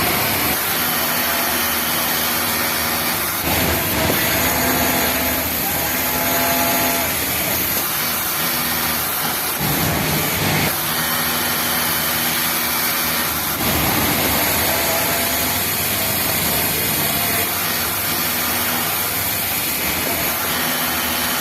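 Industrial overlock sewing machine stitching in repeated short runs, its motor humming for a second or two at a time with brief pauses between seams, over a steady background hiss.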